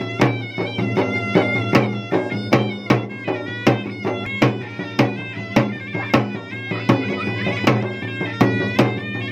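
Traditional Makassar gendang drumming with a reedy wind instrument playing a melody over a steady drone. Sharp drum strokes come evenly, about two to three a second.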